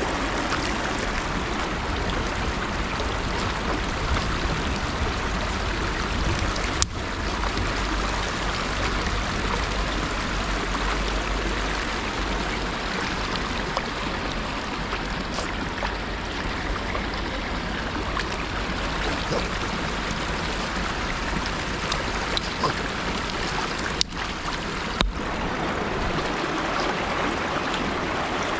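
River water flowing steadily, an even rushing wash, with three short clicks: one about seven seconds in and two close together near the end.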